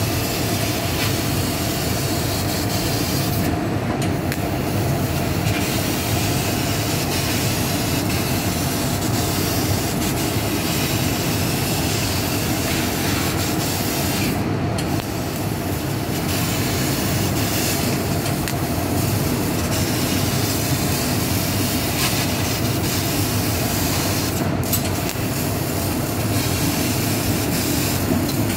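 Fiber laser cutting machine cutting sheet metal: a steady hiss and whir from the cutting head with its assist gas, with a constant tone under it. The high hiss drops out briefly three times.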